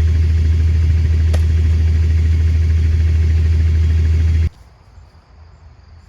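An engine running steadily with a low, even drone. It cuts off abruptly about four and a half seconds in, and then it is quiet.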